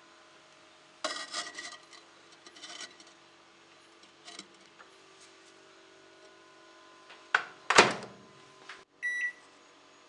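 Refractory kiln-brick lid scraped and set down onto a brick microwave kiln box, then the microwave oven door shut with a loud clunk about three-quarters in, followed by a single short keypad beep near the end.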